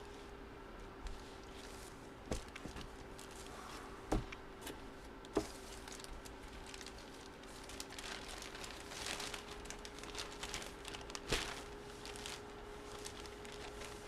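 Trading-card packaging crinkling as cards are handled, with a few sharp clicks scattered through and a denser crinkling stretch in the second half. A faint steady hum runs underneath.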